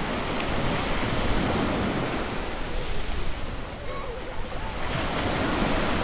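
Ocean surf breaking and washing onto a beach as a steady rush that eases off briefly about two-thirds of the way through. Faint, distant children's voices come through under the surf.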